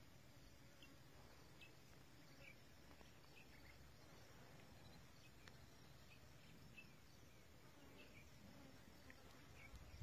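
Near silence: faint outdoor ambience with scattered short, high chirps.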